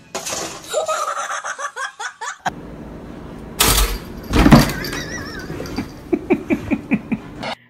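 A woman laughing in quick repeated bursts near the end, after two loud thumps a little under a second apart mid-way.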